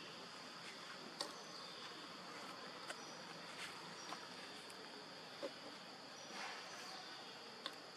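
Insects droning steadily in one high, even tone, with a handful of short sharp clicks scattered over it.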